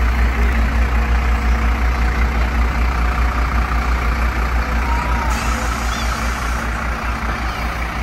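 Diesel engine of a fire department tanker truck running at a crawl as it passes close by: a deep rumble that pulses steadily and eases a little near the end.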